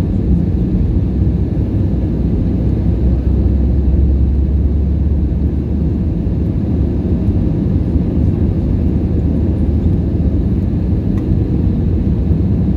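Steady cabin noise inside an Airbus A320neo on its descent toward landing: a low rumble of airflow and its Pratt & Whitney geared turbofan engines, heard from a window seat over the wing.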